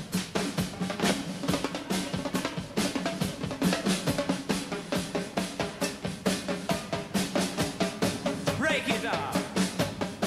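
Live reggae band playing, with the drum kit to the fore: busy snare, bass drum and cymbal strokes over sustained low notes. A short sliding pitched line cuts in briefly near the end.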